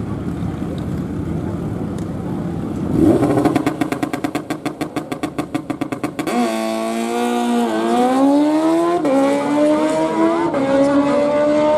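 Drag-racing sportbike engine holding high revs at the start line in a rapid, even stutter, then launching. It accelerates hard down the strip, its pitch climbing and dropping sharply at each upshift, three shifts about a second and a half apart.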